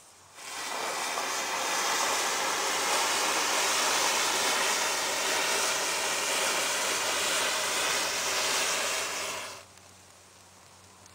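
A block of about a thousand upright matches igniting in a chain reaction: a loud, steady hiss of match heads flaring. It builds over the first second and stops abruptly about nine and a half seconds in.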